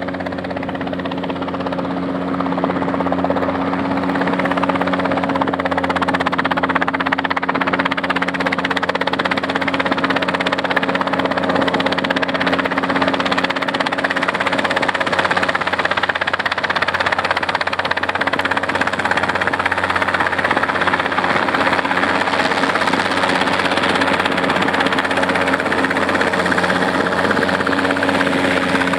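Safari 500 light helicopter flying low near the ground: steady engine and rotor noise with a constant drone, growing louder over the first few seconds and then holding level.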